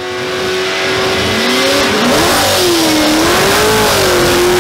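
Car engine held at high revs, its pitch dipping and climbing back in the middle, under a loud rushing noise.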